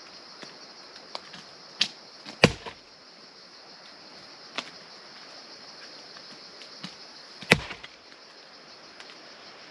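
Firewood being split by hand: two heavy chopping blows into wood about five seconds apart, with a few lighter knocks between them.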